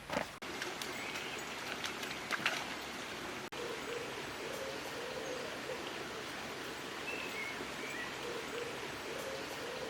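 Steady rush of a running stream, with a few footsteps in the first couple of seconds and several short bird chirps in the second half.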